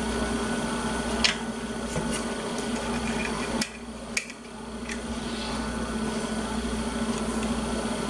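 Steady electrical hum with a few light clicks from a small screwdriver driving the screws that hold the circuit board in a Garmin GPS case. The hum dips a little past the middle and builds back up.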